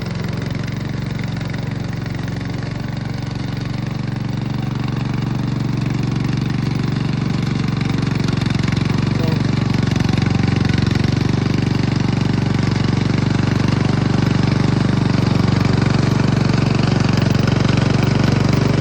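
The 7.5-horsepower engine of a hybrid remote-control lawn mower running steadily, spinning the cutting blade and charging the battery, getting gradually a little louder.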